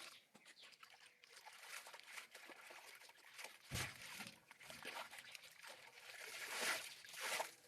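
Faint, irregular sloshing and trickling of water mixed with soft crinkly handling noises, growing a little louder from about halfway through.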